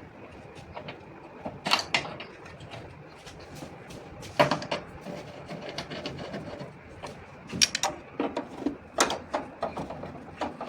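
Irregular knocks, clicks and clanks of tools and metal parts being handled during an air-conditioning compressor install, over a steady low hiss, with a few louder knocks about 2, 4 and a half, and 9 seconds in.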